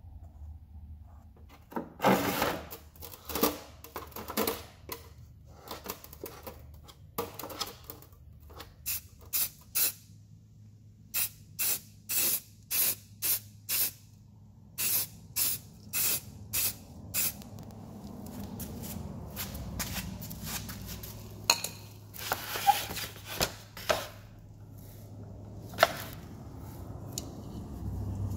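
Paint being sprayed in many short hissing bursts, each well under a second, with a low steady hum underneath.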